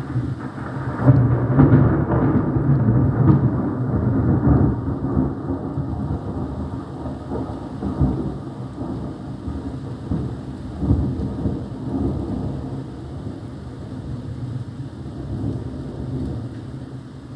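Thunder rolling over steady rain: a long rumble swells about a second in and dies away slowly, with a few smaller rolls after it.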